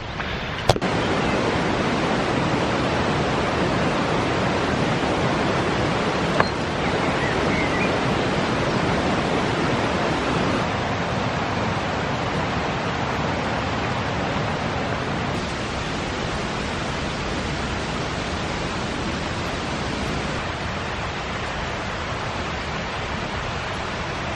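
Steady rush of a woodland waterfall, an even roar of falling water with no rhythm in it. A single sharp click comes about a second in.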